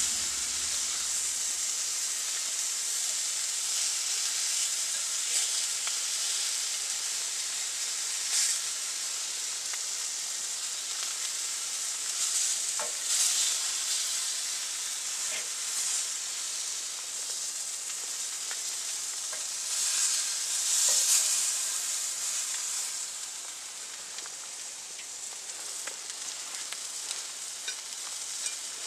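Burger patties sizzling and frying in a pan over an open wood fire, a steady hiss broken by a few short clicks and scrapes as the patties are handled. The sizzle dies down a little in the last few seconds.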